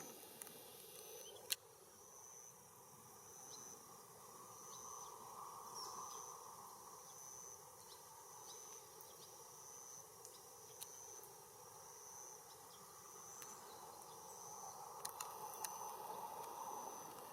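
Faint outdoor ambience: an insect chirping with a short, high note about once a second over a soft rushing background that swells twice, with a single sharp click about one and a half seconds in.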